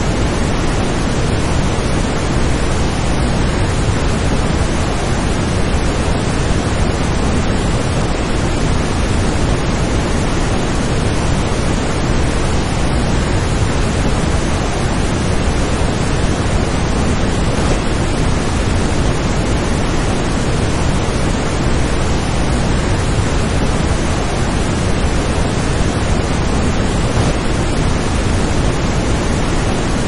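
Waterfall and river rapids rushing, a loud, steady wash of falling and tumbling water with no change or break.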